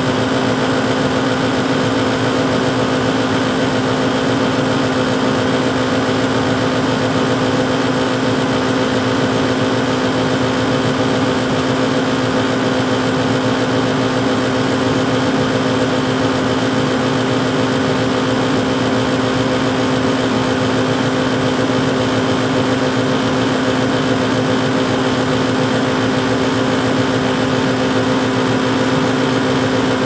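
80% standard-efficiency gas furnace running in heating mode with its front panel off: the combustion inducer motor, lit burners and indoor blower fan all running together. It makes a constant, unchanging hum over even noise.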